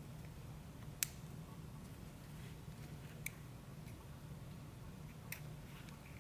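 Small metal parts of an Abloy DiskLock clicking as the lock is taken apart and its core pulled from the housing: a few sharp clicks, the loudest about a second in, others around three and five seconds in, over a faint low hum.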